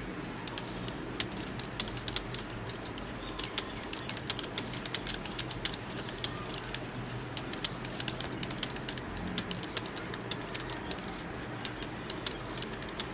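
Fast typing on a computer keyboard during a typing speed test: a rapid, irregular stream of key clicks over steady room noise.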